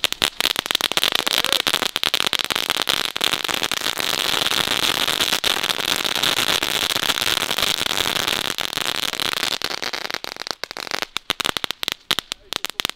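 Category 1 crackling firework burning on the ground: a dense, rapid crackling over a steady hiss, thinning to scattered crackles over the last few seconds.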